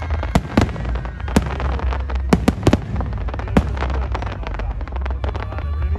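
Aerial fireworks bursting in quick succession: loud sharp bangs with many smaller crackling pops between them, over a constant low rumble. The bangs come thickest in the first three and a half seconds, then thin out.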